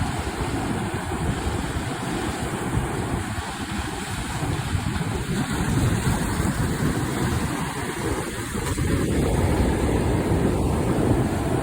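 Ocean waves surging and breaking, with wind buffeting the microphone; the rush grows louder about nine seconds in.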